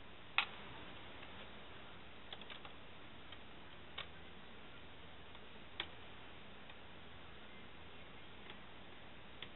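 A few small, sharp clicks over a faint steady hiss: a Phillips screwdriver and tiny screws being handled while the side screws holding a laptop screen in its brackets are taken out. The loudest click comes about half a second in, with a few lighter ones spread over the next five seconds.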